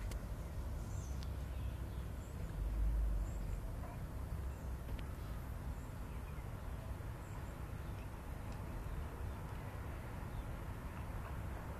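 Wind buffeting the microphone outdoors, an uneven low rumble that swells twice in the first few seconds, with a few faint, short bird chirps above it.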